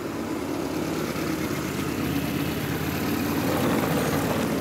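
Classic Lada inline four-cylinder engine idling with the hood open, running smoothly on the fresh motor oil that was just poured in while it ran.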